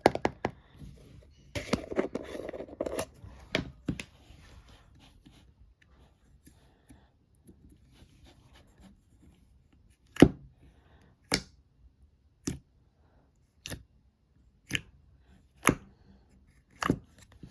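Fluffy slime being handled by hand: a crackling, squishing stretch near the start, then seven sharp clicking pops at about one a second in the second half.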